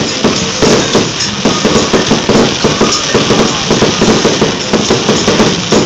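Aerial fireworks bursting in a fast, continuous barrage of bangs and crackles, several a second.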